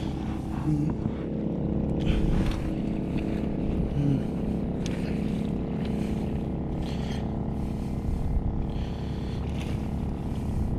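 Portable gasoline generator, rated 3,500 watts starting and 3,000 running, running steadily with an even engine hum while it powers two fishing lights. Short scratchy hisses come every second or so over the hum.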